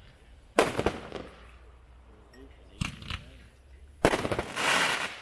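Hot Fireworks 'Crown' consumer firework cake firing. Three shots go off, about a second in, near the middle and about four seconds in, each bursting with a rattle of crackling pops. The last one ends in a denser crackling hiss.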